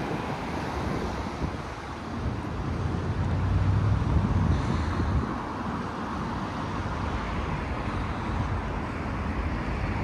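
Outdoor road-traffic ambience: a steady noise of vehicles going by, with a louder pass swelling and fading about three to five seconds in.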